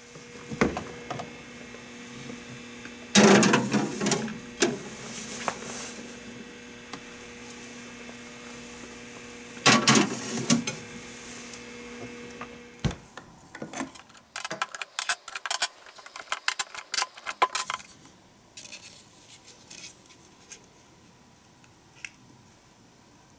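Hard plastic jelly molds handled and set down with clattering knocks over a steady refrigerator hum. A door thumps shut about 13 seconds in and the hum stops. Then come many quick light plastic clicks and taps as a mold is handled.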